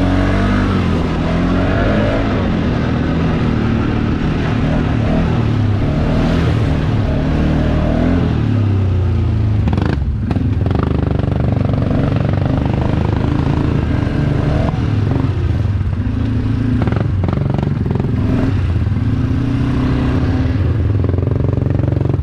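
Four-wheeler (ATV) engine running and revving as it is ridden off-road, its pitch rising and falling with the throttle. A few sharp knocks and clatters come partway through.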